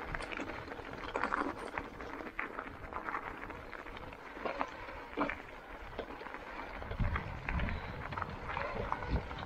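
E-mountain bike tyres rolling over loose stones and scree on a rocky singletrack, with a steady crunching and many small clicks and knocks as the bike rattles over the rocks. A low rumble comes in about seven seconds in.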